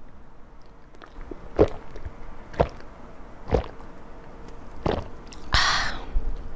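A person gulping beer from a can close to a handheld microphone: four sharp swallows about a second apart, then a breathy exhale after the last gulp.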